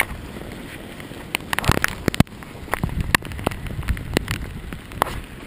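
Hail falling: sharp, irregular ticks of hailstones striking close to the microphone, over a low, steady rumble.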